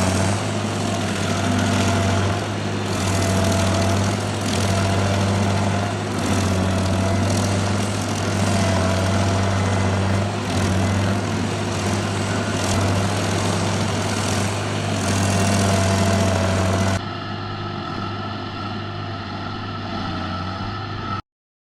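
Stump grinder engine running hard, its loudness swelling and dipping every couple of seconds as the cutter works. About 17 s in it falls to a quieter, smoother run, then cuts off abruptly near the end.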